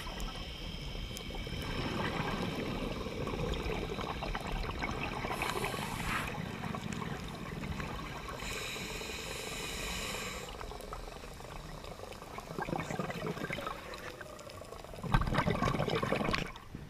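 Underwater noise heard through an action camera's waterproof housing: a steady rush of water with stretches of bubbling, and a louder surge about a second and a half before the end.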